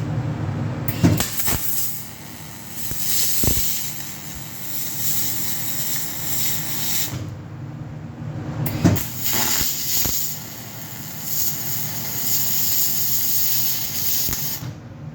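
Gas-shielded (MIG) welding arc hissing in two long runs with a short pause between, a few sharp clicks at the arc starts, over a steady low machine hum.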